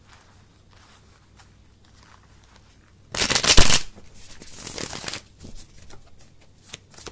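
Tarot cards being shuffled: faint card sounds, then a loud burst of shuffling lasting under a second about three seconds in, followed by softer shuffling and light taps.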